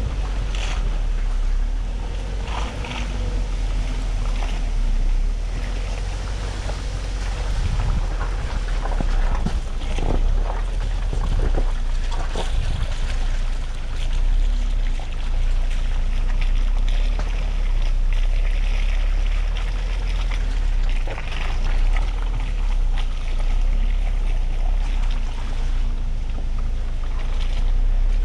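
A 4x4 pickup truck driving off-road: a steady low rumble with wind buffeting the microphone, and scattered knocks and bumps throughout.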